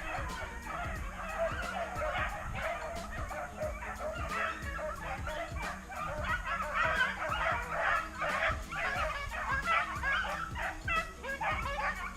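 A pack of rabbit dogs baying and yipping in an overlapping chorus, the cries growing denser about halfway through, as they run a rabbit.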